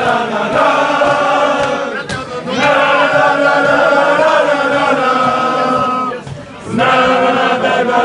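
A crowd of Bosnia and Herzegovina football supporters chanting a song together in unison. Long sung phrases break off briefly about two seconds in and again about six seconds in.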